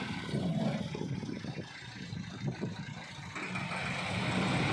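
Massey Ferguson tractor's diesel engine running at low speed while it pulls a heavily overloaded trolley, with a steady hiss joining in about three seconds in.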